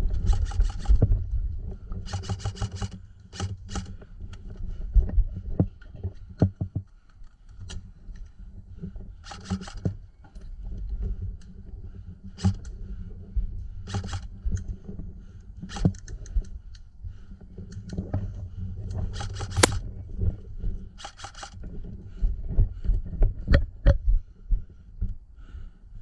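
Airsoft guns firing short full-auto bursts every few seconds, each about a second long, over a low rumble and scattered clicks.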